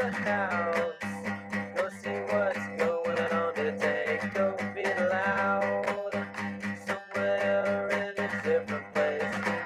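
Background music led by a plucked and strummed acoustic guitar, with a quick, even picking pattern.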